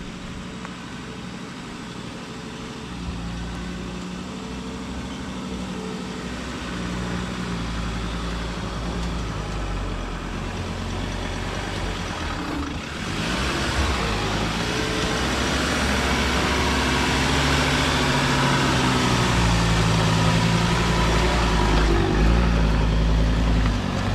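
Ford Ranger 4WD driving on a dirt forest track: steady engine hum whose pitch shifts in steps, with louder road and tyre noise coming in about halfway through.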